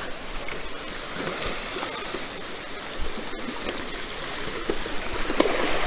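Steady rush of a small mountain stream's flowing water, with a few faint clicks.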